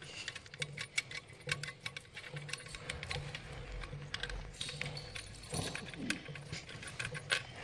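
Irregular light metallic clicks and clinks of a steel ring spanner being fitted and turned on a tie-bolt of a small electric motor's end cover.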